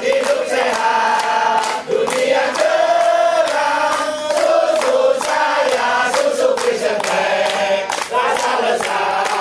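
A large group of voices chanting in unison with long held notes, over steady rhythmic hand clapping.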